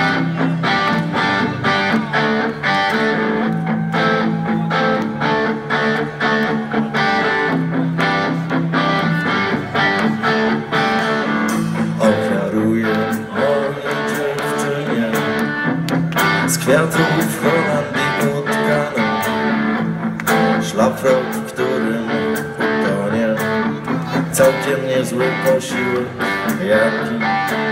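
Rock band playing live: strummed electric guitar chords over a steady bass line and regular drum beats, an instrumental intro before the vocals come in.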